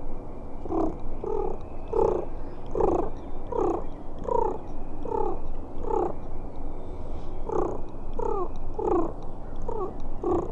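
A series of turkey yelps: about eight evenly spaced, falling two-part notes, a short pause, then about five more.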